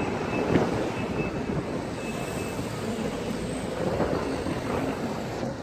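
A stream of cars driving past on a multi-lane road: a steady rush of engine and tyre noise.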